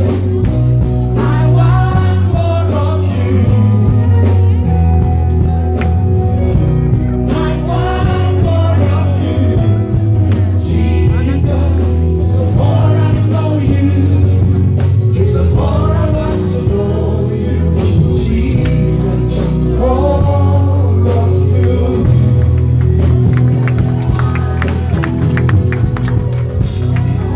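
Live gospel singing through a PA system: a lead singer with backing vocalists over amplified accompaniment with a strong bass line.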